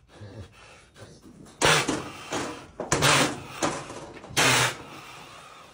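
Cow blowing out hard through her nose three times, about a second and a half apart, with fainter breaths between: she is clearing infection from her head after her drains were flushed.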